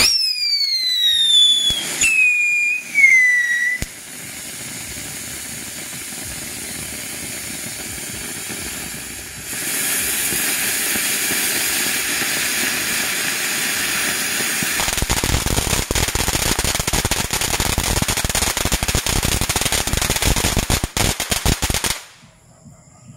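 Three-stage ground fountain firework. First come shrill whistles falling in pitch for about four seconds, then the steady hiss of the silver spark fountain, which grows louder about ten seconds in. From about fifteen seconds in there is dense crackling, which stops abruptly near the end.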